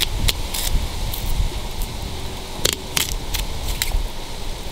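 Fillet knife slicing along a mutton snapper's backbone, with scattered light ticks as the blade passes over the bones, over a steady low rumble.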